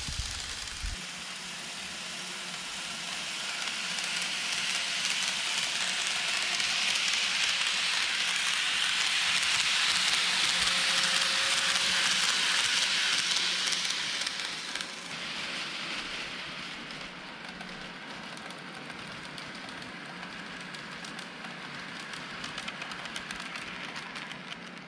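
KATO N-gauge 683 series 'Thunderbird' model train running on the layout track: a crackling, hissy rattle of its wheels on the rails with a low steady hum underneath. It grows louder as the train passes close by about halfway through, then drops off sharply about fifteen seconds in.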